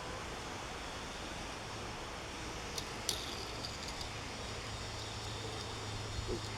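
A few faint clicks of plastic blister packaging being handled as a diecast toy car is taken out, over a steady background hiss and hum.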